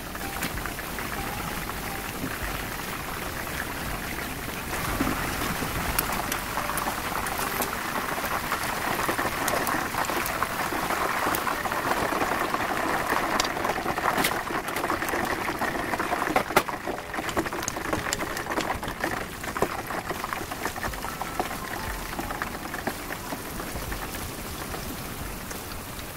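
Coated chicken pieces deep-frying in hot oil in a pan: a steady, dense sizzle and crackle with scattered sharp pops of spitting oil. The sizzle is louder through the middle.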